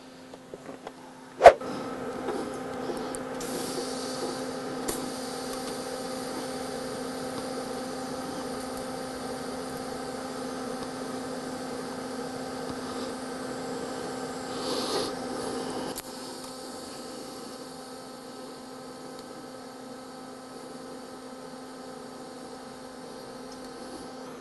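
TIG welding arc on a steel exhaust tailpipe: a sharp click as the arc strikes about a second and a half in, then a steady humming buzz with a light hiss as the weld runs, dropping a little in level about two-thirds of the way through.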